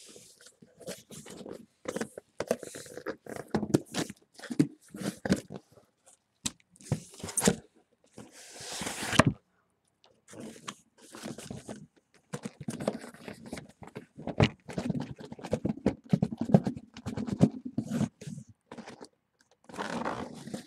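Cardboard shipping case of trading-card boxes being ripped open and unpacked: irregular scraping, crunching and knocking of cardboard, with one longer tearing rip about eight seconds in.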